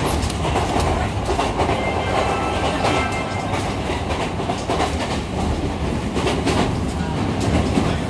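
Running noise of a JR West 223-series electric train, heard from inside a passenger car: a steady rumble with the clickety-clack of wheels over rail joints.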